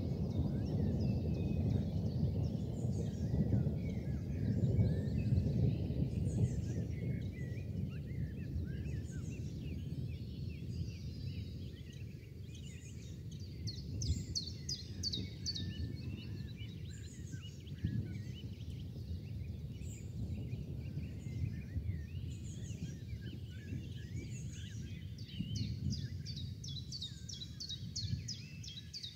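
Birds chirping and calling over a steady low rumbling noise, with a fast, rhythmic high-pitched trill about halfway through and again near the end.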